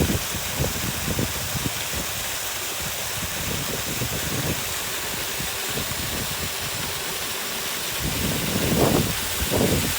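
Steady hiss of falling rain, with wind buffeting the microphone in low, irregular gusts that are strongest near the end.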